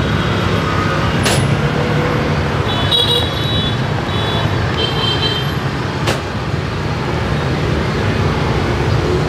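Steady street-traffic noise of passing motorbikes and engines, with short high horn toots about three and five seconds in. Two sharp clicks are heard, one about a second in and one about six seconds in.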